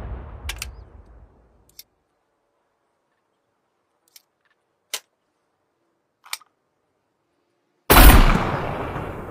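Improvised grenade launcher sound effect: a heavy boom dies away over the first second, a few short sharp clicks follow, then another very loud boom near the end rings out.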